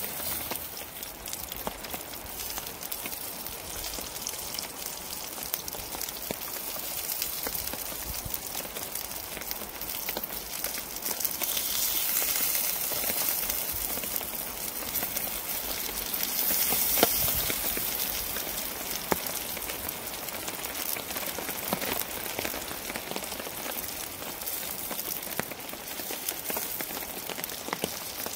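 Lamb skewers sizzling and spitting in a frying pan on a Trangia camping stove, a steady crackling hiss. It gets louder for a few seconds twice near the middle, when the pieces are turned in the fat.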